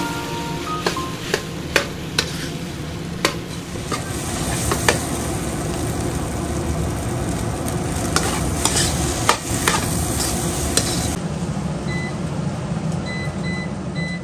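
Chicken fried rice stir-frying in a wok: a steady sizzle, with the spatula scraping and clacking against the wok a dozen or so times as the rice is tossed.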